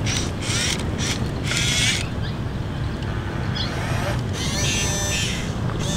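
Huina 1551 remote-control excavator's small electric gear motors whining in a string of short bursts, some rising in pitch, as its tracks climb the rock and its long boom shifts. A gear rattle runs under the whine, and a longer whine comes near the end.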